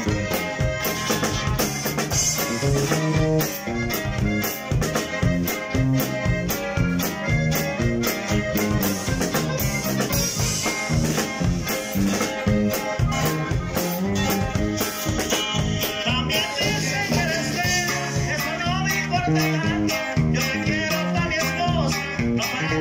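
Live band playing a Latin American tune with accordion, guitar and drum kit over a steady beat.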